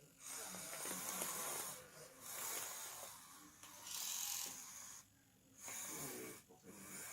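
Small electric motors and plastic gearing of a 3D-printed model CAT excavator whirring in several short runs of about a second or two, with brief pauses between them as its movements start and stop.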